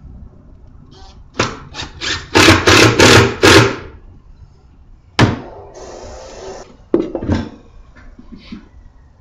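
Cordless drill driving screws into plywood panels in a run of short bursts, followed by a sharp knock, a brief steady whirr and two more knocks against the wood.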